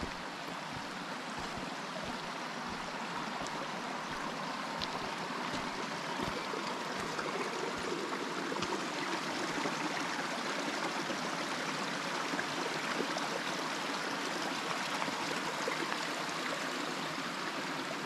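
Steady rush of a fast-flowing forest stream, growing slightly louder.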